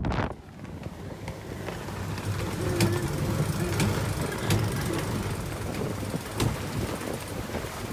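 Strong squall wind rushing over the microphone on a sailing catamaran, with a low rumble of wind and water along the hull. A few sharp knocks sound in the middle.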